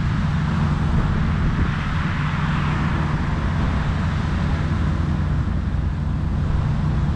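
Steady rumble of road traffic, with the tyre noise swelling as a vehicle passes about two to four seconds in.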